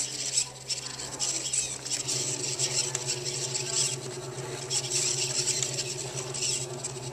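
Small motors in a string-driven PVC-pipe robotic hand whirring as the fingers move, with gritty high chattering throughout. A low buzz comes in about two seconds in and holds steady.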